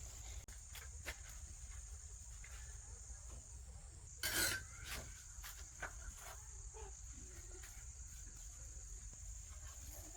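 Steady high-pitched insect drone, with scattered light clicks and knocks and one brief louder rustling burst about four seconds in.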